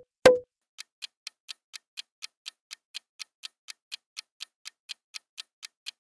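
Countdown timer sound effect: a clock ticking at about four ticks a second, after a sharp hit right at the start.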